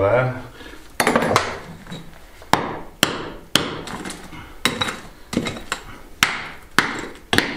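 Hammer striking concrete and stone rubble at floor level, about a dozen sharp blows, roughly two a second, each with a short ring: breaking out an old concrete slab at a step.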